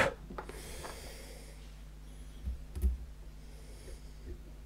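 Quiet handling of small metal tools and parts, with a couple of soft knocks about two and a half and three seconds in and faint clicks. Breathy exhalations through the nose come near the start and again late.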